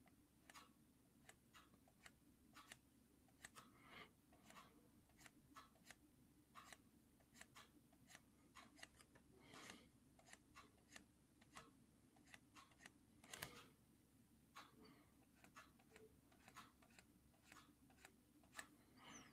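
Near silence with faint, irregular clicks and taps, about one or two a second, over a low steady hum.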